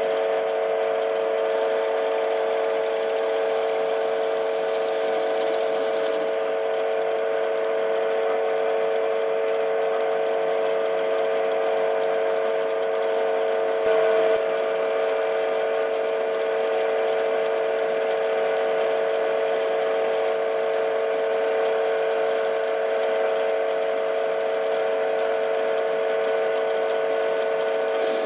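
TV16 lathe running steadily, its drive giving a constant whine of a few close pitches while a boring bar cuts inside the bore of a duralumin blank. A brief louder moment comes about halfway through.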